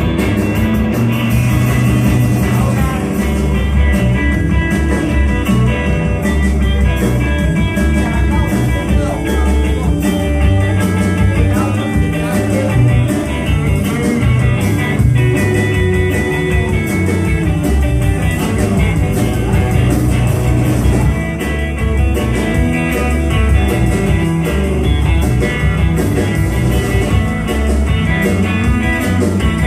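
Live blues-rock band playing loudly: electric guitars over a steady drum beat, without pause.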